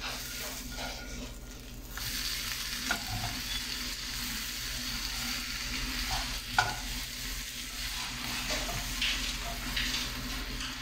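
Egg-white omelette with mushrooms and onion sizzling in a nonstick frying pan, the sizzle growing louder about two seconds in. A plastic spatula scrapes and taps against the pan a few times as the omelette is turned and folded.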